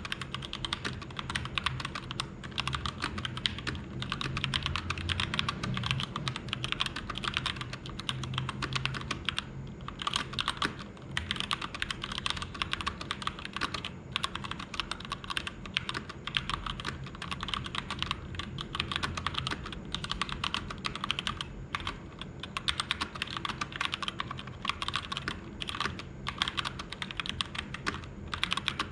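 Continuous fast typing on a Keychron K2 V2 hot-swap mechanical keyboard with stock red linear switches and a thin layer of foam added inside the case: a steady, dense stream of keystrokes.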